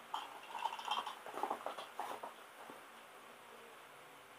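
A small cardboard product box being handled and opened by hand, its contents slid out: irregular rustling, scraping and small clicks through the first two seconds or so, then only faint handling.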